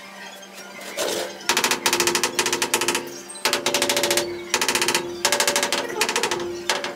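Hammer rapidly tapping a ceramic wall tile to bed it into the mortar behind it. The taps come in five quick bursts with short pauses between them, starting about a second and a half in.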